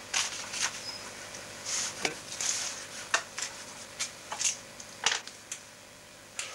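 Sheets of paper rustling and being handled, with a string of sharp taps and knocks on a wooden table.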